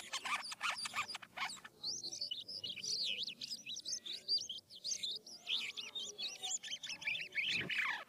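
A jalak kapas starling singing a varied rolling song. It opens with fast, dense chattering clicks, then gives a long run of quick warbling whistled notes, with a falling note near the end before the chatter returns.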